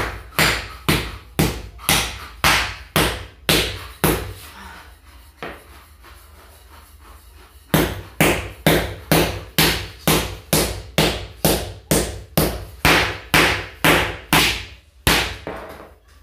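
Hammer blows on old ceramic floor tiles to break them up, a steady run of sharp strikes about two a second. The strikes pause for a few seconds about four seconds in, with only a few faint knocks, then resume at the same pace and stop just before the end.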